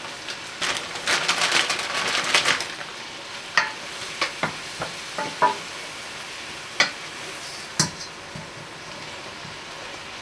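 Spinach leaves going into a hot stainless steel sauté pan with a crackly rustle and sizzle, then a wooden spoon stirring them through the sauce, knocking sharply on the pan about eight times over a low steady sizzle.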